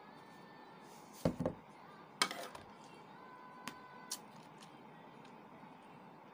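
A metal fork and spoon clinking against a plate and a plastic tub while balut eggs are being eaten: a handful of sharp clicks and taps, the loudest a little over two seconds in.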